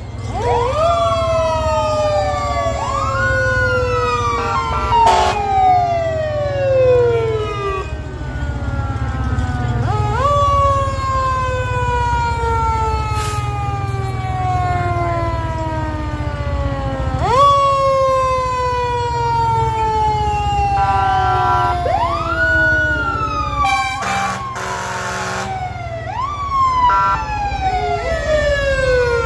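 Fire truck siren winding up quickly and then winding down slowly, over and over, with a few short horn blasts in between and a low engine rumble underneath.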